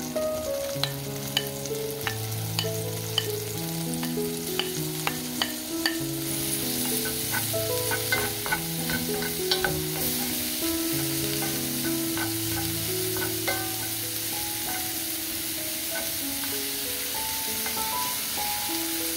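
Diced vegetables sizzling in butter in a cast-iron grill pan, stirred with a wooden spatula that clicks and taps against the pan, many sharp clicks over the first half. The sizzle grows stronger about six seconds in. A soft background melody plays throughout.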